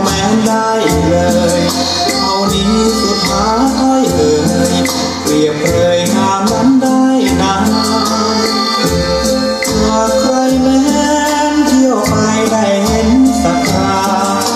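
A Thai song played through a homemade loudspeaker: a melody over a bass line with a steady shaker-like percussion beat.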